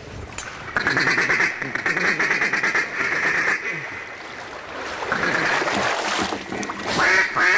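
A mallard duck call blown in rapid chattering runs, like a feed chuckle: one long run, then a second after a short pause, with louder quack-like notes near the end. The hunters are calling to draw in circling mallards.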